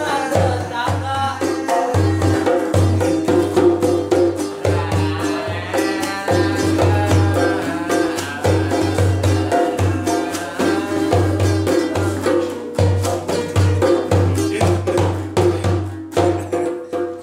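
Small acoustic guitar strummed in a steady rhythm over a regular low thumping beat, with a voice singing along.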